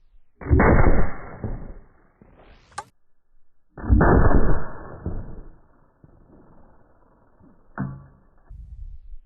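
Shots from a Serbu RN-50 .50 BMG rifle striking axes, played back slowed down as three deep, muffled booms. A rising whoosh comes just before the second boom, and the third is short with a metallic ring.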